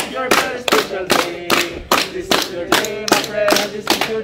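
A group clapping in time, about three claps a second, while singing a birthday song together.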